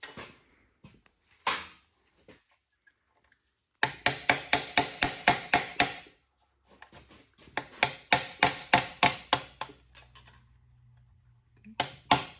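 Hammer driving a steel pin punch to knock the fifth gear shift fork roll pins out of an NV4500 five-speed transmission. The metal strikes come in quick runs of about five a second, three runs with short pauses between them.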